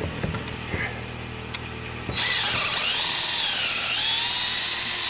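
An 18-volt cordless drill with a half-inch high-speed-steel bit starts about two seconds in and runs, drilling through the hole in a steel U-bracket into a timber post. Its motor whine rises and falls in pitch as the trigger and load change. Before it starts, a few light clicks.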